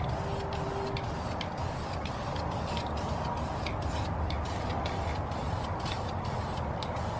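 Aerosol can of primer spraying with a hiss that pulses about three times a second, over wind rumbling on the microphone.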